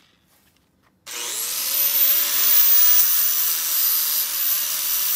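Corded angle grinder switched on about a second in, its whine rising as the motor spins up, then grinding steadily on the steel exhaust pipe at the crimped catalytic converter joint, cleaning the metal back to a surface for MIG welding.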